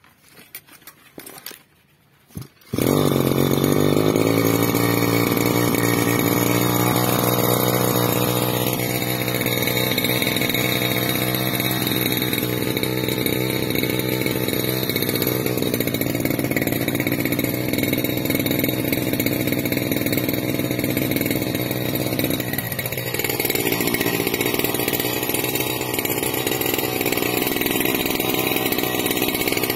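Tasco 328E backpack brush cutter's two-stroke engine being pull-started: a few short faint pulls, then it catches suddenly about three seconds in and runs steadily and loudly, with one brief dip in engine speed about two-thirds through.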